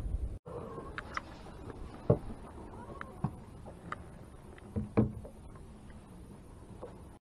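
Scattered light knocks and clicks from someone shifting about and handling gear in an aluminium jon boat, the sharpest about two seconds in and a couple more near five seconds.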